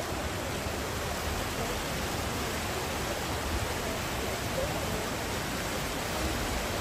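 Steady rushing noise of floodwater flowing down a street and swirling around the legs of people wading through it.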